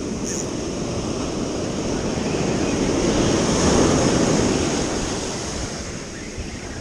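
Ocean surf, a wave swelling to its loudest about halfway through and then washing back.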